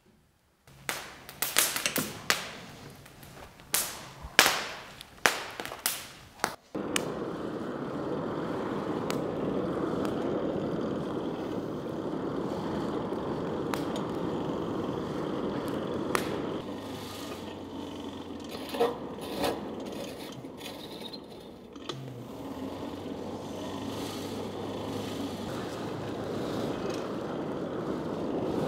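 Kindling crackling and popping sharply as it catches in a coal forge. About seven seconds in this gives way to a steady rushing of air through the burning fire from a hand-cranked forge blower, with a faint low hum at times.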